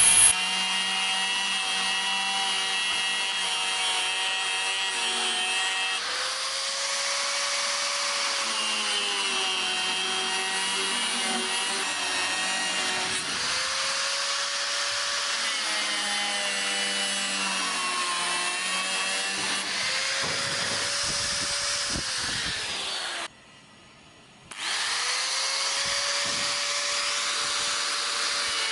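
Angle grinder running and cutting through a plastic bucket, its motor pitch sagging and recovering several times as the disc bites. The sound cuts out abruptly for about a second near the end, then resumes.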